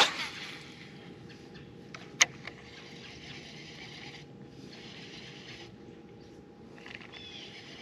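Faint steady hum of a bass boat's electric trolling motor, with one sharp click about two seconds in and patches of soft hiss coming and going.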